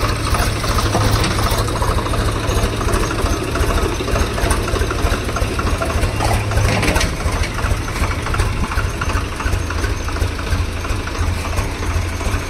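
A Swaraj 834 XM tractor's three-cylinder diesel engine running steadily close by, with a fast, even low throb.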